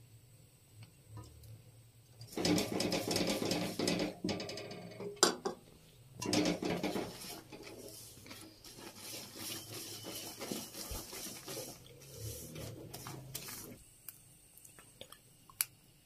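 Silicone spatula stirring and scraping a thick mix of molten jaggery and peanuts around a steel kadai, loudest in two spells a few seconds in, then softer stirring.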